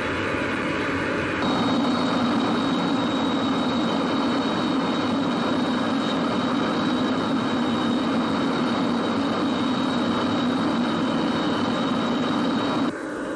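Jet engines of a large aircraft on approach, a steady rushing run with a thin high turbine whine. It grows louder about a second and a half in and cuts off sharply near the end.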